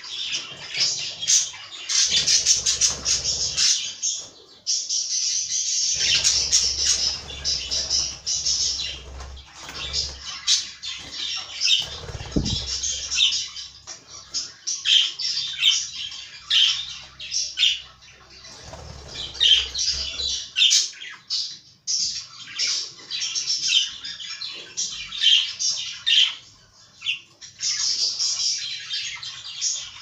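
Several budgerigars chattering: a dense, continuous run of quick warbles, chirps and squawks, with a few stretches of low rumbling noise, at about two, six and nineteen seconds in.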